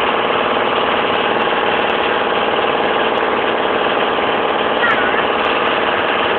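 A boat's engine running steadily, heard from on board as a loud, even drone with a fast regular pulse.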